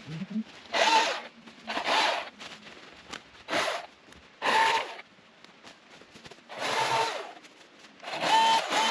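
Milwaukee battery-powered top-handle chainsaw making quick cuts while limbing small branches: about six short bursts of buzzing chain, each about half a second long, with pauses between.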